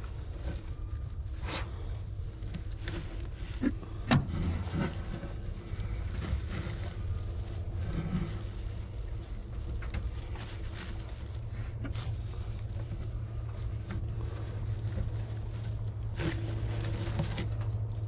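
Hands rustling straw and rabbit fur in a wooden nest box, with scattered light clicks and one sharper knock about four seconds in, over a steady low rumble.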